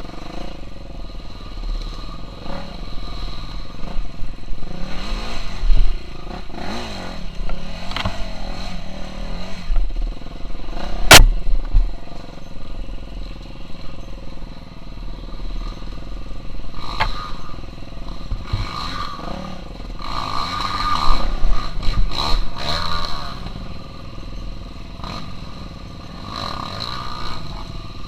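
KTM 350 SX-F four-stroke single-cylinder dirt-bike engine being ridden hard off-road, the revs rising and falling with throttle and gear changes, over repeated clattering knocks and one sharp crack about eleven seconds in.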